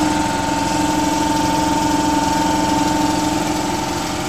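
Clarke electric air compressor running, a loud, steady machine drone with an even hum as it pumps air into its tank.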